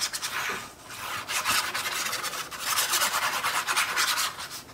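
Ink applicator rubbed quickly back and forth along the edge of a sheet of pattern paper: a run of dry scraping strokes that inks the paper's white core so the edge stands out.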